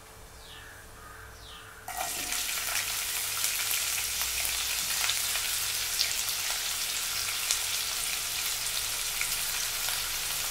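Chopped onion tipped into hot oil with spluttering mustard seeds and cumin in a nonstick pan: a sudden loud sizzle about two seconds in, then steady frying with small crackles.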